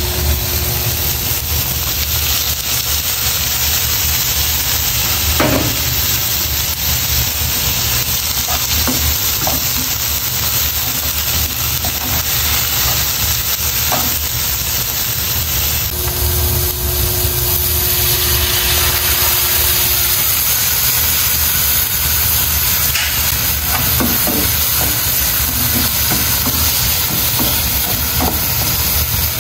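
Prawns, onion and green chilies sizzling as they stir-fry in a non-stick pan, with a spatula scraping and now and then tapping against the pan.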